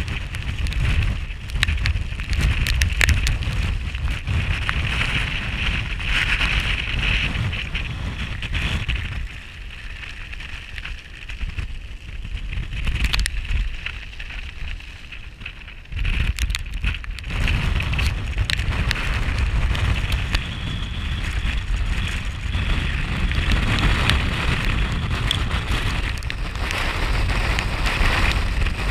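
Gale-force wind gusting on the microphone and buffeting a Hilleberg Akto tent, a heavy rumble and rush with scattered sharp clicks. The wind eases for several seconds near the middle, then comes back suddenly.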